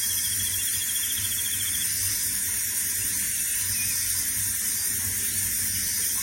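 Parrotbill giving a rapid, dry trill for about two seconds at the start, over a steady high hiss and a thin constant high whine.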